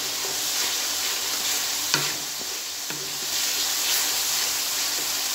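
Onion, ginger-garlic and spice masala sizzling in hot oil in a metal wok as a wooden spoon stirs it, a steady hiss of frying. The spoon knocks against the pan about two seconds in and again near three seconds.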